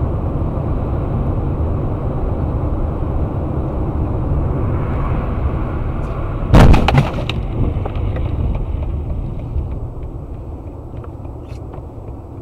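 Steady road and wind rumble inside a moving car, broken by one loud sudden bang with a brief clatter about six and a half seconds in.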